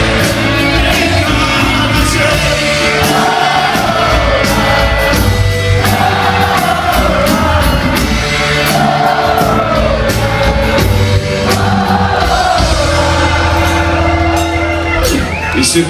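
Rock band playing live in a concert hall, with singing over guitars, bass and drums, heard loud from within the audience.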